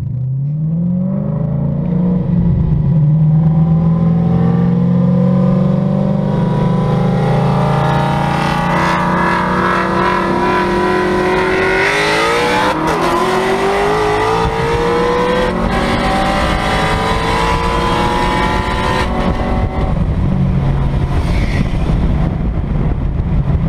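Shelby GT500's supercharged V8 accelerating hard, its pitch climbing from about a second in and held at high revs, with wind rushing through the open convertible top. A second rising engine note comes in around the middle.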